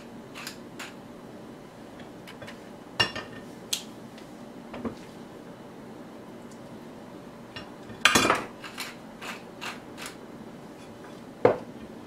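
Scattered clicks and taps of kitchen utensils, a salt-and-pepper grinder and tongs, handled over a cutting board. The loudest is a short clatter about two-thirds of the way in, and there is a sharp knock near the end.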